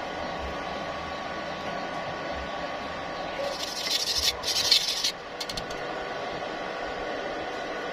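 Steady machine hum, broken about three and a half seconds in by a short stick-welding arc crackling for under two seconds with a brief break in the middle, followed by a few sharp clicks.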